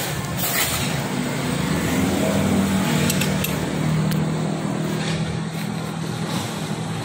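A motor vehicle engine running steadily at a low pitch, with a few sharp metallic clicks of a hand wrench working a bolt.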